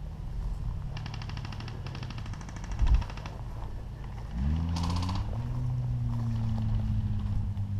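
A motor running steadily, its pitch rising about four seconds in and then holding higher. Earlier, a rapid mechanical rattle lasts about two seconds.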